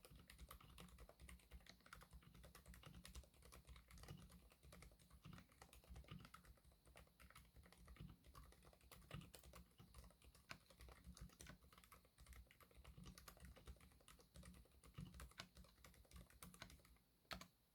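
Typing on an acrylic-case mechanical keyboard with Keychron K Pro silent red linear switches and OEM-profile keycaps: a quiet, quick, continuous stream of muted keystrokes. The typing stops near the end after a couple of louder strokes.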